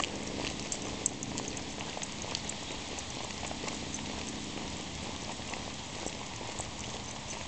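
Walking noise on a concrete sidewalk: a steady hiss with scattered light clicks and ticks from footsteps and a leashed dog's paws.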